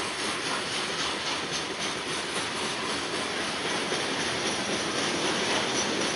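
Loaded coal hopper cars of a freight train rolling past: a steady noise of steel wheels on rail, with a faint rhythmic clicking over it.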